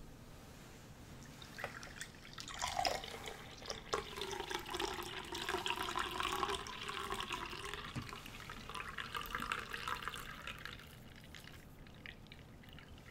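A red drink being poured from a glass pitcher into a glass, a steady liquid trickle that starts a couple of seconds in and dies away near the end.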